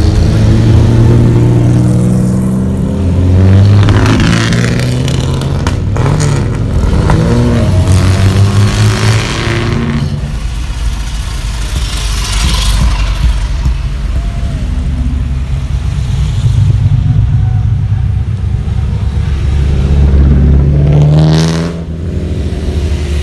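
Classic cars and motorcycles driving past one after another at low speed, their engines running. The engine pitch rises and falls as each one goes by, with one vehicle passing close shortly before the end.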